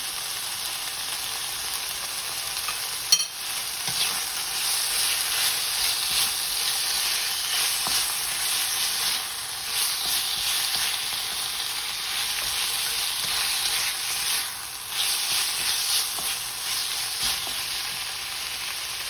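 Yellow curry paste frying in a pan, sizzling steadily while being stirred, the sizzle rising and falling with the stirring. A single sharp click about three seconds in.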